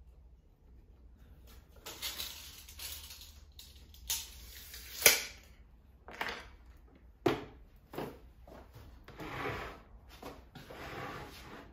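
Woodworking handling noise as a 2x4 and tools are moved about on a plastic workbench: a scatter of knocks and clicks with scraping and rubbing between them, the loudest a sharp click about five seconds in.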